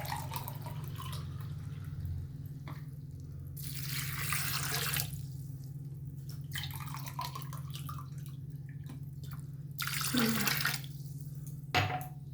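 Water being poured in a few separate pours onto the cut amla and spices, the two loudest about four seconds in and about ten seconds in, over a steady low hum.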